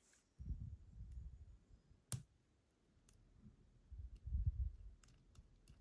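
Small metal clicks and low handling bumps as the tailpiece is fitted and tightened onto a Schlage Primus lock cylinder, with one sharp click about two seconds in.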